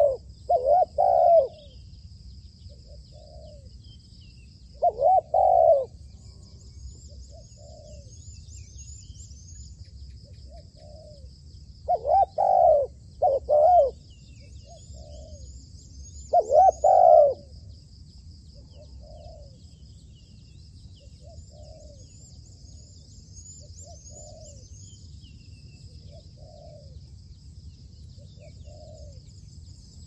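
Spotted doves cooing. Loud phrases of two or three low coos come near the start, about five seconds in, twice around twelve to fourteen seconds and once at about seventeen seconds, with fainter coos every second or two throughout. A steady high buzz of insects and a few small high chirps from other birds run underneath.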